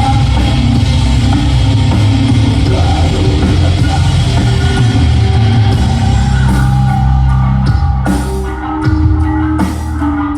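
Live rock band playing loudly: drum kit and heavy guitars in a dense, sustained wall of sound. Past the middle it breaks into separate drum hits over held guitar notes.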